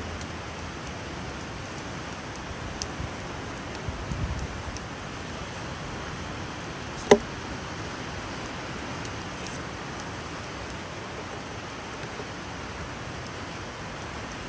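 Steady hiss of wind and ocean surf, with faint ticks of a knife working a fish fillet on a plastic cutting board and one sharp click about seven seconds in.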